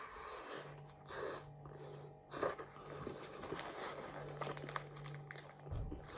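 Close-up chewing and biting of a burger, with its paper wrapper crinkling now and then. A low steady hum comes and goes behind it.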